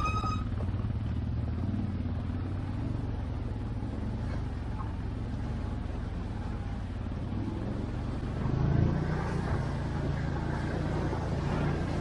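ATV engine running steadily at low revs, swelling briefly about nine seconds in.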